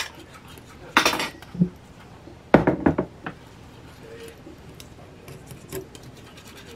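A metal spoon knocking and scraping against a small saucepan while stirring sauce: two sharp knocks, one about a second in and another about two and a half seconds in, then only faint small clicks.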